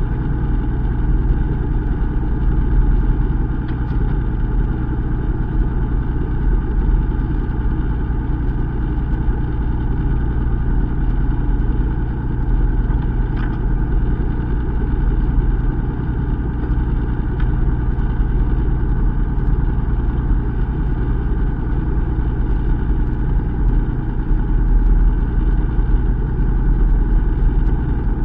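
A fishing boat's engine running steadily at low revs, a deep, even hum with a faint wash of water along the hull.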